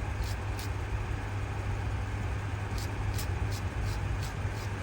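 Brake caliper slider pin being cleaned: a series of short, light scraping strokes, a couple early on and a quicker run near the end, over a steady low background hum.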